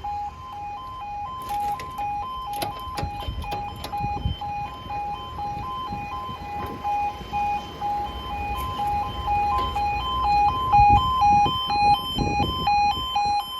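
Level crossing audible warning alarm sounding: two tones alternating in a steady, repeating pattern, warning road users of an approaching train. A few sharp knocks come in the first few seconds.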